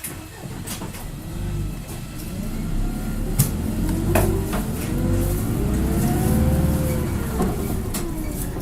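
Hino Blue Ribbon city bus heard from inside, pulling away and accelerating: the engine rumble builds and its pitch climbs, peaking about six and a half seconds in before easing off. Two sharp knocks come about three and a half and four seconds in.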